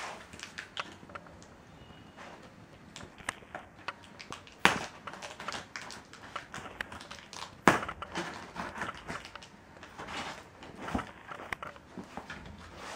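Cardboard carton being handled and its packing tape cut with a knife: scattered scratching, scraping and clicks, with two sharp knocks about five and eight seconds in.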